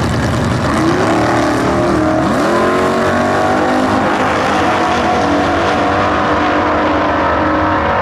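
Two 1959–1969 super stock drag cars launching and accelerating hard down the drag strip, their V8 engines at full throttle. The engine note climbs steeply about two seconds in, then holds high as the cars pull away.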